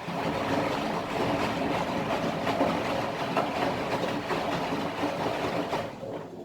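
Candy Formula Inox P 7.71X washing machine's drum turning one way for about six seconds, tumbling the wet washload with sloshing and rattling, then stopping. This is one turn of the wash action's turn-and-pause rhythm.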